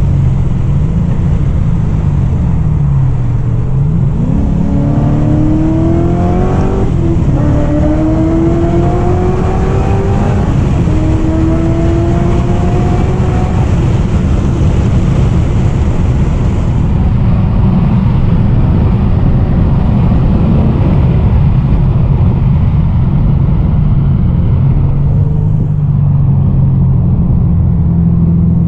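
A car's V8 engine and exhaust under acceleration, the revs climbing three times with a drop in pitch at each upshift. About halfway through it settles into a steady, lower engine note under constant road and wind noise.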